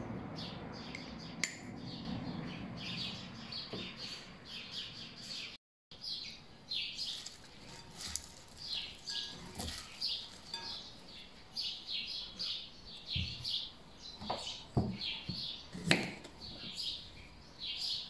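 Small birds chirping and twittering continuously, with a few sharp clicks and knocks from dishes and utensils being handled in the second half, the loudest about two seconds before the end. The sound cuts out completely for a moment about six seconds in.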